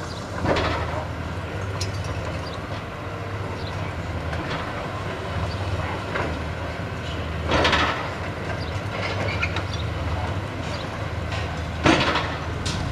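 Demolition excavator's diesel engine running steadily while its hydraulic demolition jaws work the concrete and masonry of the building. Loud cracks and crashes of breaking concrete come about half a second in, near eight seconds, and twice near the end.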